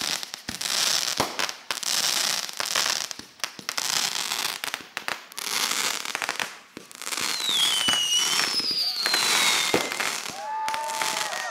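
Fireworks going off: continuous crackling and sizzling with many sharp pops. A few whistles glide down in pitch around two-thirds of the way through.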